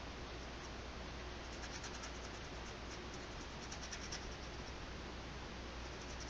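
Nylon paintbrush scrubbing acrylic paint onto the painting, a run of faint, quick scratchy strokes about a second and a half to four seconds in, over a steady background hiss.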